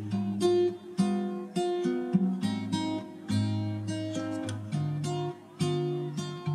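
Background music: acoustic guitar playing a gentle run of plucked notes and chords.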